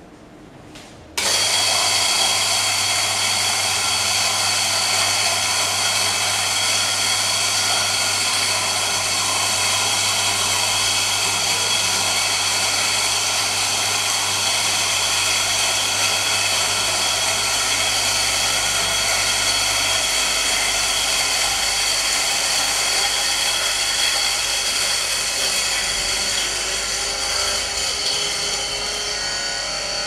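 Carlton Kohi KH-800 electric burr coffee grinder switching on about a second in and grinding coffee beans at its finest setting. It gives a steady, unbroken motor whine with grinding noise.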